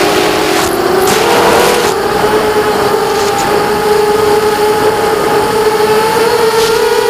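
FPV quadcopter's brushless motors and propellers whining at a steady pitch, climbing slightly about a second in and then holding. Short gusts of rushing air over the onboard microphone come in the first two seconds.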